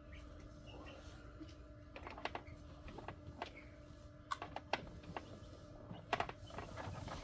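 Light, irregular clicks and taps as newly hatched Coturnix quail chicks move among the eggs and shells inside an egg incubator, over the incubator's steady faint hum.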